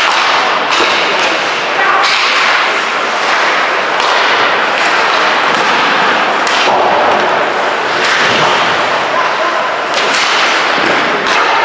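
Ice hockey game sound inside a rink: a steady noisy hiss with sharp cracks and knocks of sticks, puck and boards. The sound changes abruptly every few seconds where separate game clips are cut together.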